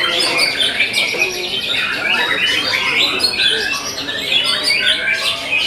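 Several caged white-rumped shamas (murai batu) singing at once: a dense, fast, unbroken mix of chirps, trills and whistled phrases.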